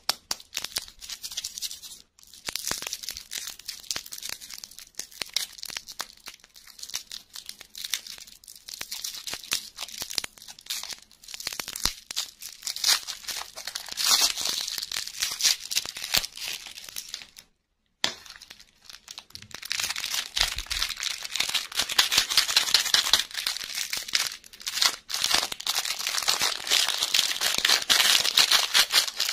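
Cellophane lollipop wrappers crinkling and tearing as they are peeled off by hand, then a small clear plastic toy packet crinkling as it is handled. The sound cuts out completely for a moment a little past halfway.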